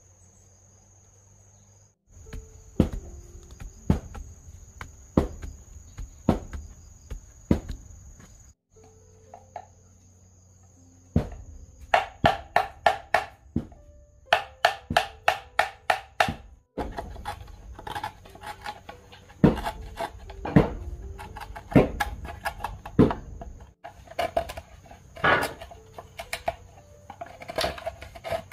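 A hammer driving a metal chisel into a green bamboo tube to cut a round hole: sharp knocks, in places a quick run of about three a second. Under them runs the steady high chirring of crickets.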